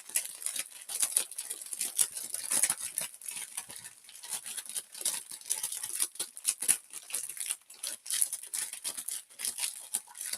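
Plastic packet of dry instant noodles crinkling and crackling as it is handled, a dense run of irregular crackles throughout.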